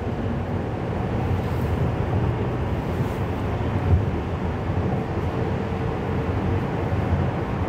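Steady road and engine noise inside a moving car.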